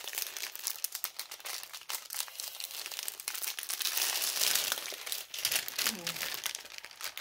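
Plastic packaging crinkling and crackling as it is handled and opened, a dense run of small crackles that is loudest about halfway through.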